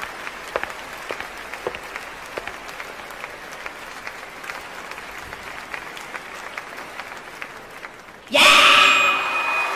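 Audience applauding, with scattered individual claps. About eight seconds in, a sudden much louder sound with several held tones cuts in over it.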